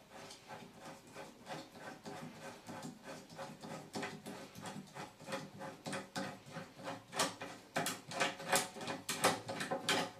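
Handheld rotary pipe cutter being turned around a copper water pipe, cutting it to length: a run of rhythmic scraping clicks at about three to four a second, louder in the last few seconds as the cut goes deeper.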